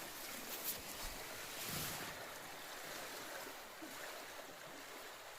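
Steady outdoor hiss of wind and water-like noise, swelling slightly about two seconds in.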